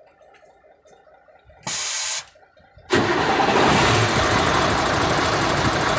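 Mercedes-Benz Actros 1844 V6 diesel engine starting. A short hiss comes first, then about three seconds in the engine fires abruptly and runs loud and steady. It is starting after the leaking fuel-filter line, which the mechanic blames for its morning hard starting, was resealed and primed.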